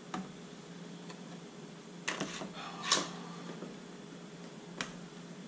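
A few sharp clicks and knocks of desktop computer parts being handled and fitted, the loudest about three seconds in, over a faint steady hum.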